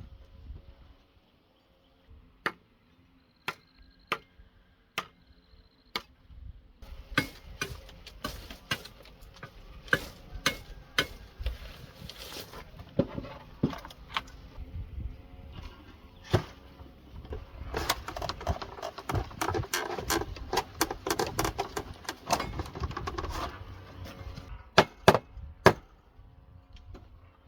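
Sharp knocks, about one a second at first, then quicker and irregular blows. Midway there is a stretch of dense scraping, and a quick cluster of knocks near the end.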